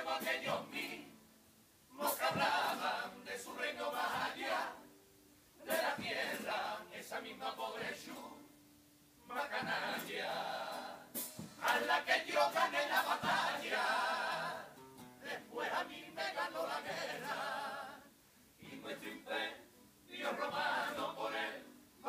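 A Cádiz-style carnival chirigota, a group of men, singing together in unison. The song comes in phrases of a few seconds, with short breaks between them.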